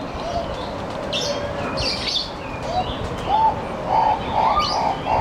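Birds calling: scattered high chirps, then from a little past halfway a steady series of low, cooing notes, about three a second.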